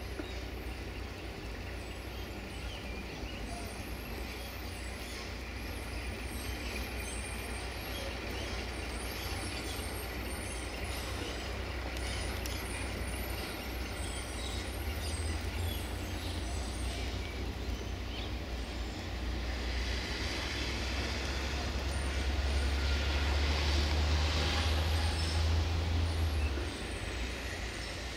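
Heavy dump truck's diesel engine running as the truck drives past, a steady low rumble that grows louder over the last several seconds and drops off near the end. Birds chirp faintly in the background.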